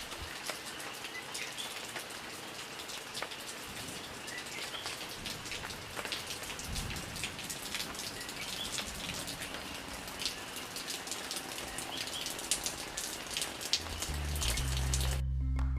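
Steady rainfall with many sharp individual drop hits and a few faint bird chirps. Music with low bass notes comes in near the end.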